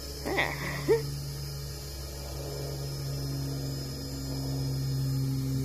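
Steady buzzing hum of a Hubsan X4 Desire mini quadcopter's motors as it flies low. The pitch wavers a little in the middle and it grows slightly louder toward the end. A couple of brief voice sounds come in the first second.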